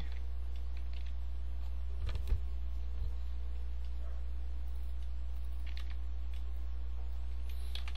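A few scattered computer keyboard keystrokes, about two seconds in and again near three and six seconds, over a steady low hum.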